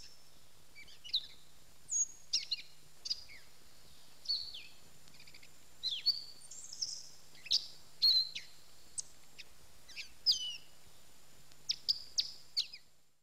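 Birds chirping: a string of short, sharp calls, many sweeping quickly down in pitch, coming at irregular intervals over a faint steady low hum. The sound fades out at the very end.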